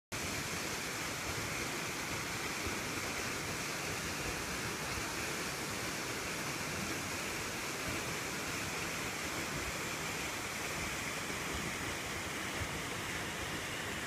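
Kinchkha waterfall: a steady, even rush of water falling from a high cliff.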